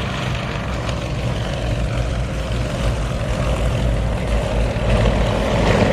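Yakovlev Yak-50 aerobatic aircraft's nine-cylinder radial engine and propeller droning in flight overhead, growing louder near the end. This is the rough, "agricultural" sound of the simple, reliable radial engine.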